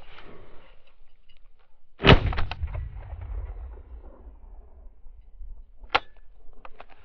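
A single shotgun shot about two seconds in, its low rumble rolling on for a couple of seconds, after steps rustling through dry grass. A sharp click follows near the end.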